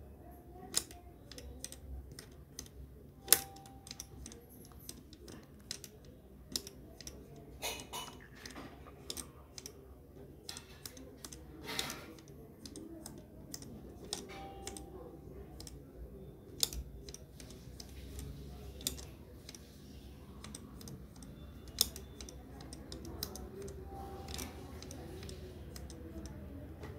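Abacus beads clicking as fingers flick them up and down the rods in quick, irregular runs of clicks, with a few single clicks louder than the rest.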